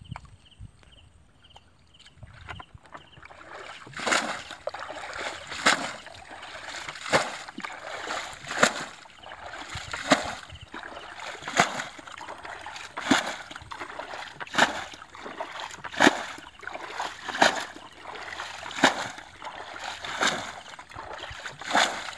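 Water splashing as a plastic bucket is scooped through a shallow muddy pool and its load thrown out, bailing the pool down, with one splash about every second and a half starting about four seconds in.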